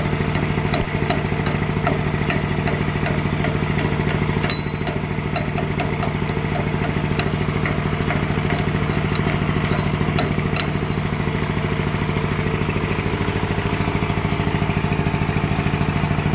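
An engine running steadily at a constant speed, with light clicks over it for about the first ten seconds and a single sharp knock about four and a half seconds in.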